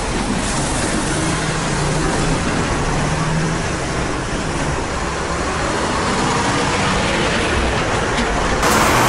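Heavy diesel tractor unit hauling a shipping-container trailer, its engine running with a low hum as it turns and pulls past, the hum fading after about four seconds. Near the end, louder traffic noise takes over.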